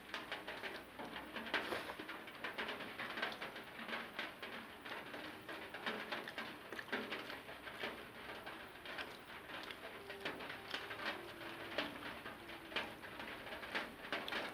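Close-miked chewing and mouth sounds of someone eating rice and curry: a steady run of small wet clicks and smacks, with a faint low tone coming and going underneath.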